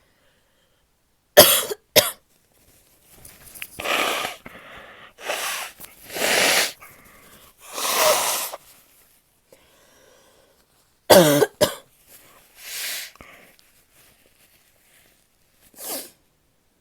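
A woman coughing: two sharp coughs, then several long, noisy, breathy sounds, then two more sharp coughs about eleven seconds in and a short breathy sound near the end.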